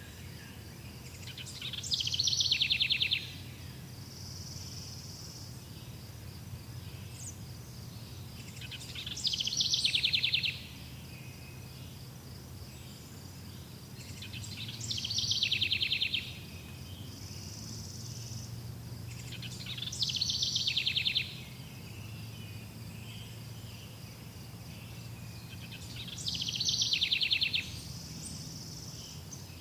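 Outdoor natural ambience: a steady high chirring of insects such as crickets, with a loud buzzy trill that repeats five times, about every six seconds. Each trill lasts about a second and a half, swells, then cuts off sharply.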